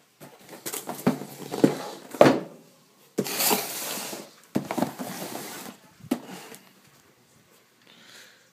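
Amplifier packaging being handled and pulled apart: a few knocks, then two longer spells of rustling and scraping, dying away near the end.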